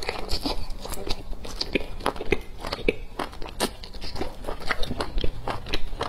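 Close-up eating sounds: biting into and chewing a piece of sauced meat, with many quick, irregular wet clicks and smacks of the mouth.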